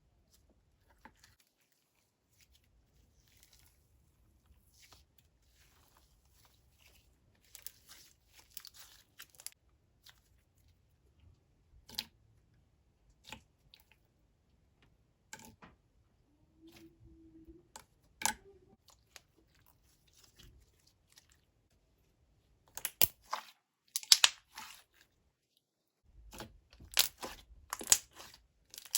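Soft, jiggly slime being squeezed, poked and stretched by hand, giving scattered sticky pops and crackles, with louder runs of popping near the end.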